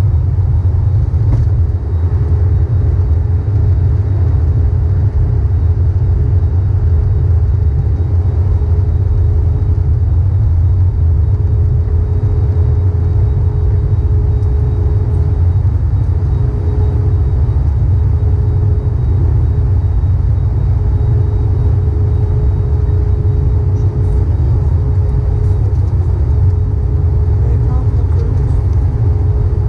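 Steady in-flight cabin noise of an Airbus A321neo heard at a window seat: a loud low rumble of the engines and airflow, with a steady mid-pitched hum over it.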